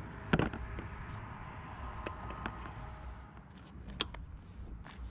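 Motorcycle passenger seat being fitted back onto the tail section: a sharp knock about half a second in, a few light clicks, then another sharp click about four seconds in as the seat is pressed down into place.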